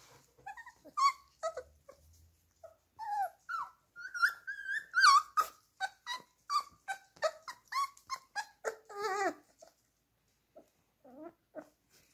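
Four-week-old beagle puppies play-fighting, giving a rapid string of short, high-pitched yelps and squeals. The calls come thickest through the middle, stop for about a second, then a couple more follow near the end.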